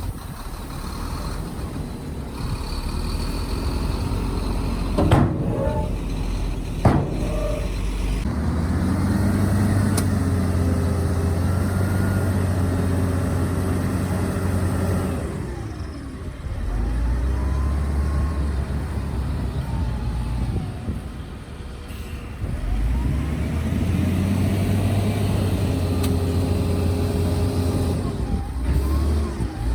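Diesel engines of a crawler bulldozer and a wheel loader working sand. The engines pull hard under load in long spells and ease off twice in between. Two sharp metallic clanks come a few seconds in.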